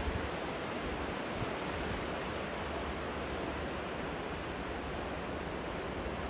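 Fast, silt-laden river in full flood: a steady rush of turbulent water with no breaks.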